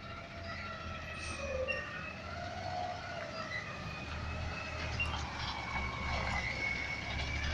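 Front-loading garbage truck driving up, its diesel engine rumble growing louder as it nears, with wavering high-pitched squeals over it.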